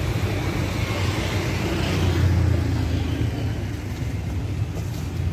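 Street traffic: a motor vehicle's engine running close by, swelling to its loudest about two seconds in and then easing off, over general road noise.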